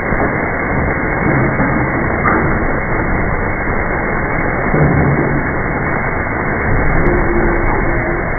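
Steady mechanical din of an automatic hot forging machine running for brass valves, with faint hums that come and go.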